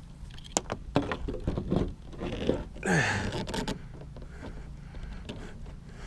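Sharp knocks, then a stretch of scraping, splashing commotion as a catfish is brought into the boat, over a steady low hum.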